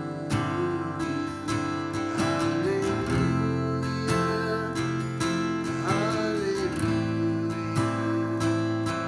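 Acoustic guitar music, strummed chords with a slow melodic line over them.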